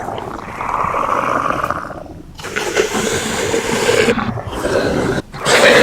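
Dinosaur roar sound effects, a Tyrannosaurus rex roaring: two long roars, with a third beginning near the end.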